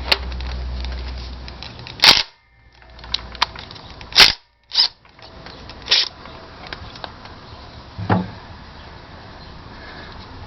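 About five sharp metallic clanks and knocks, spread a second or two apart, from hand tools and loose bolts being handled and set down during an engine teardown.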